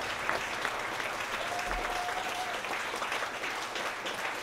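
Audience applauding steadily, a dense patter of many hands clapping, with a brief steady tone standing out above it near the middle.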